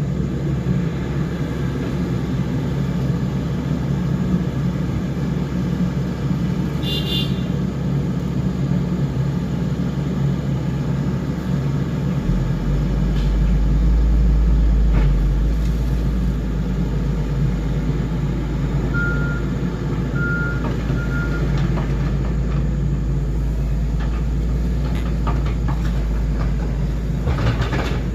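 Heavy earthmoving machinery running steadily; its engine works harder and grows louder about twelve seconds in. About twenty seconds in there are three short backup-alarm beeps.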